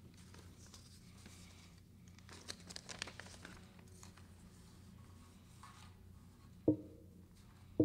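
Sheets of paper rustling and crinkling a couple of seconds in, then an acoustic guitar struck twice near the end, each strum ringing briefly.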